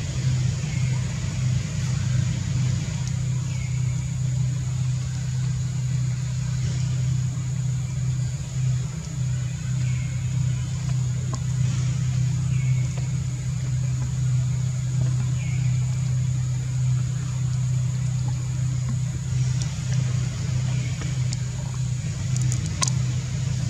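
A steady low motor hum, even and unbroken, with faint short high chirps every second or two.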